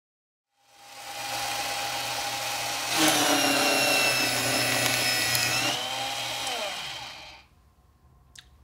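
Small electric paper shredder starting up with a motor hum and whine. It turns louder and harsher about three seconds in as it shreds paper. Near the end the motor winds down, its whine falling in pitch before it stops.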